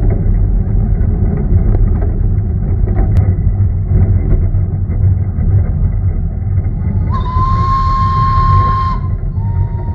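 1945 narrow-gauge steam tender locomotive running along the track with a steady low rumble. About seven seconds in its steam whistle blows for about two seconds, then sounds again lower and softer near the end.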